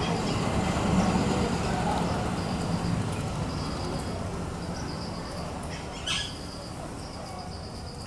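Rose-ringed parakeets: one short, harsh squawk about six seconds in, over a row of high, quick chirps that repeat throughout. A steady low rumble of distant traffic runs underneath.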